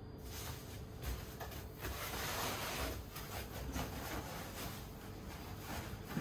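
Rustling and scraping of packaging as chair parts are handled inside a cardboard box: plastic wrap and cardboard crinkling, loudest about two seconds in, with a few soft knocks.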